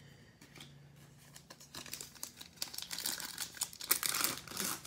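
Foil Panini Mosaic football card pack being crinkled and torn open by hand. It starts about two seconds in and gets louder toward the end.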